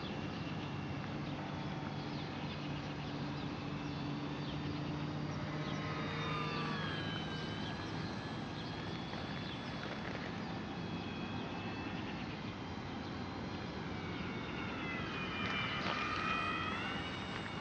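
Micro RC model Cessna's small 3500kv electric motor and propeller whining in flight, its pitch sweeping up and down as it passes twice, loudest near the end, over steady wind noise.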